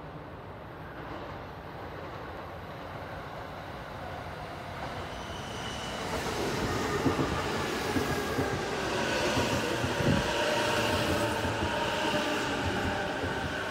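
JR Yokohama Line E233-series electric commuter train pulling into the platform, rumbling on the rails and growing louder until it draws level about six seconds in. A whine of several tones falls slowly in pitch as the train brakes.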